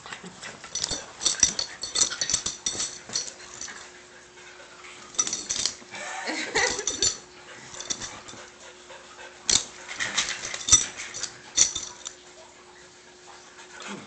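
A dachshund and a small Jack Russell-type mix play-fighting: irregular bursts of scuffling and scratching with brief dog growls and yips.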